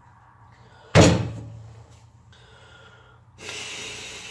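A single loud bang about a second in, dying away over about half a second, then a breathy hiss lasting about a second near the end.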